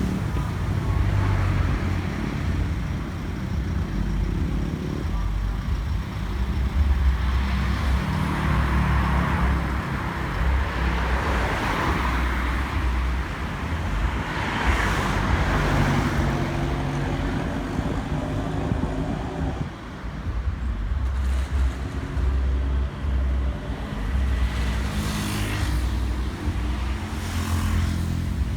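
Motor vehicle running with traffic noise: an uneven low rumble and road noise, with no siren sounding.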